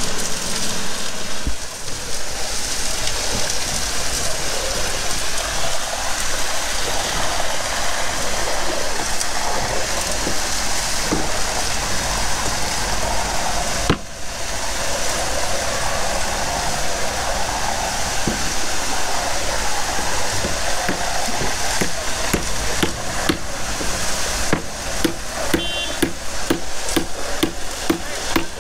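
Truck-mounted concrete pump running while ready-mix concrete pours from its hose into a column footing hole: a steady rushing noise, with a run of sharp knocks in the last few seconds.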